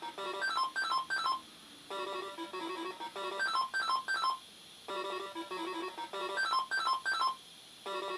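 Funky Doctor pachinko machine playing a short electronic beeping jingle on a loop, the phrase starting again about every three seconds and each time ending in three quick chirps.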